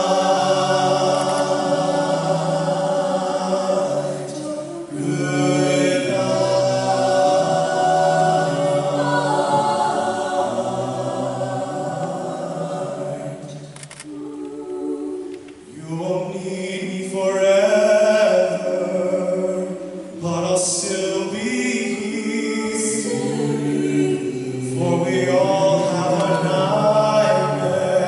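A five-voice vocal group singing a cappella in close harmony through handheld microphones. There are short breaths between phrases, with the longest pause about halfway through.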